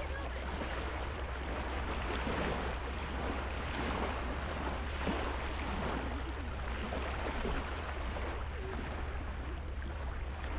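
Small lake waves lapping steadily at the shore, with a low wind rumble on the microphone.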